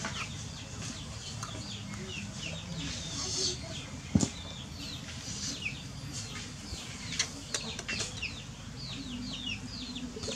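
Chickens in the yard clucking and peeping: many short, high, falling chirps, with one sharp knock about four seconds in.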